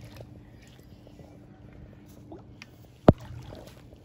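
Hooked catfish swirling at the surface of a lake, with faint light splashes and drips. One sharp, loud knock about three seconds in.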